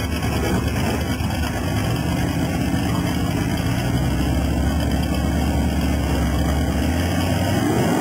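Big-block Chevrolet V8 of a drag-race Camaro running loud at the starting line, a steady heavy rumble that rises in pitch near the end as it revs up. Heard through an old camcorder's microphone.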